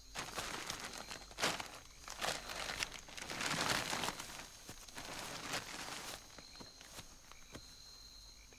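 Footsteps and rustling of leaves and branches as someone pushes through undergrowth, in irregular bursts, loudest about halfway through. A faint steady high insect trill runs behind.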